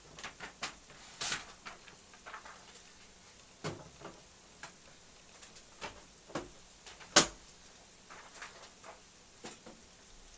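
Irregular light clicks and knocks of something being handled, with one sharp, louder knock about seven seconds in.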